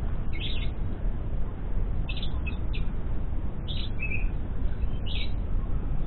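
A lovebird giving short, high chirps, about six or seven spaced irregularly, over a steady low rumble.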